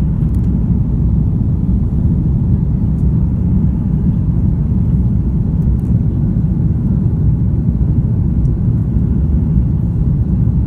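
Steady low rumble of engine and airflow noise inside the cabin of an Airbus A330-300 in its climb-out, its Rolls-Royce Trent 700 turbofans running at climb power.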